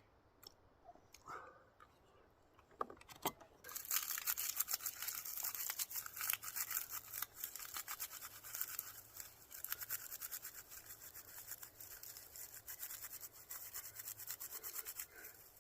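Dry birch bark being scraped and shredded into tinder: a few light clicks, then from about four seconds in a fast, continuous rasping scrape that goes on for about twelve seconds.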